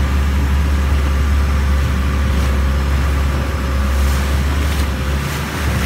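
Longtail boat engine running steadily as the boat cruises, a deep unbroken drone heard from on board with a steady hiss above it.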